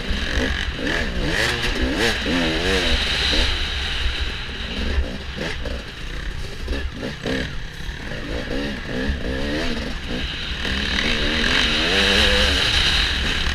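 Dirt-bike engines revving and easing off over and over, their pitch rising and falling quickly as the bikes race, sometimes two at once, over a steady low rumble.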